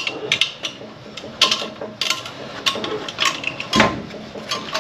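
Irregular metallic clicks and clinks of steel clutch-pack parts and retaining clips being worked loose by hand inside an automatic transmission case, some ringing briefly, with a heavier knock about four seconds in.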